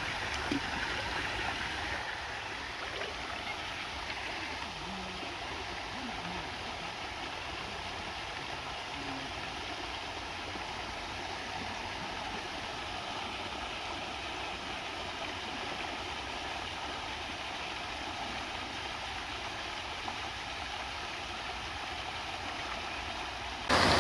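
Steady rush of flowing water, even and unbroken, which turns abruptly louder just before the end.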